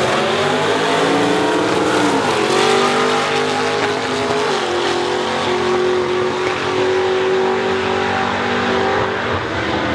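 Supercharged V8 of a Ford SVT Lightning pickup at full throttle on a quarter-mile drag run, mixed with a second car's engine. The engine note climbs, drops at an upshift about two and a half seconds in and again near five seconds, then holds as the vehicles pull away down the track.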